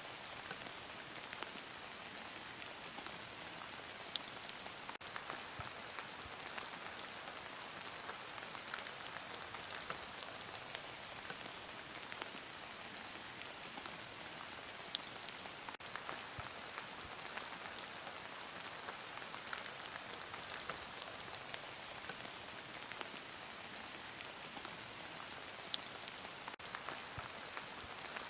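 Heavy rain falling steadily on a surface, an even hiss with scattered sharp drop ticks.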